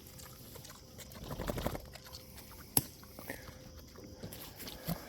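A pig grunting low about a second and a half in, with a single sharp click a little over a second later.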